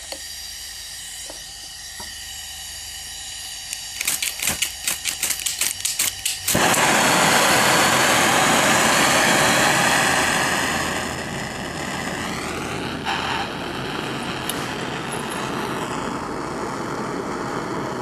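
Bernz-O-Matic air/propane hand torch being lit on a small pipe furnace: a faint hiss, a rapid run of clicks for about two seconds, then the torch catches with a sudden loud, steady roar that eases a little a few seconds later and burns on evenly, heating the furnace's crucible to melt silver.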